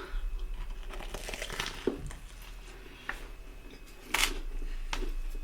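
Close-miked eating sounds: a person chewing and working through a plate of spaghetti, with mouth noises and a few sharp clicks, the loudest about four seconds in. A faint steady low hum sits underneath.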